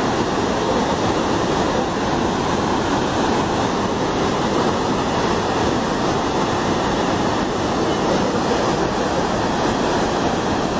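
Steady rushing of floodwater: a torrent pouring down a hillside into a swollen, muddy river.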